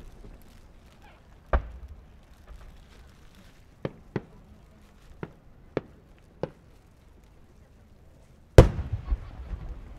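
Aerial fireworks shells bursting at a distance: a run of about seven sharp bangs spaced irregularly. The loudest comes near the end and is followed by a brief echoing crackle of smaller pops.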